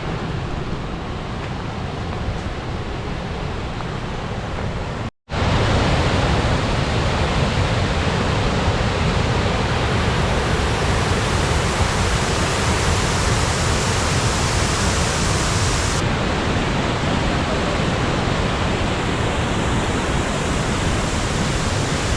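Steady rushing roar of a waterfall. It drops out briefly about five seconds in, then comes back louder and brighter.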